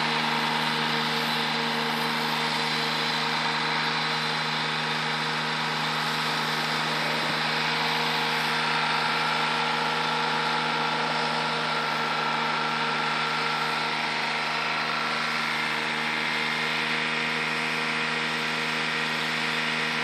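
McConnell Robocut remote-controlled slope mower's engine running at a steady, constant speed as it mows, a held engine note that does not change pitch.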